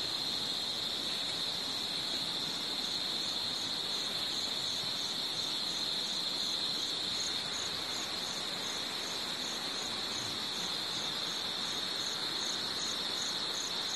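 Insects calling steadily: a continuous high-pitched drone, with a second, higher chirp repeating about twice a second over it.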